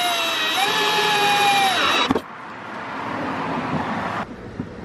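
Power drill with a 3/8-inch twist bit boring a hole through the rotomolded polyethylene hull of a Hobie Outback kayak: a steady motor whine that rises slightly in pitch, then drops and cuts off about two seconds in. A quieter hiss follows for about two more seconds.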